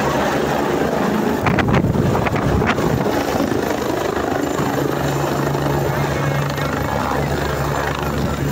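Helicopter coming in to land close by, its rotor and turbine noise running steadily. The rotor wash buffets the microphone, with a few louder gusts about two seconds in.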